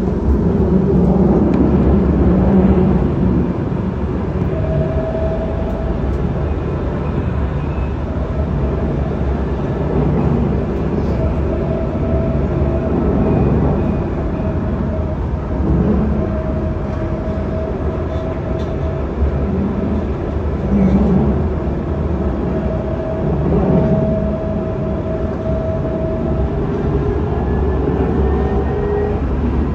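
Dubai Tram running, heard from inside the car: a steady rumble from the wheels on the rails, with an electric whine that holds one pitch for much of the time and rises near the end as the tram changes speed.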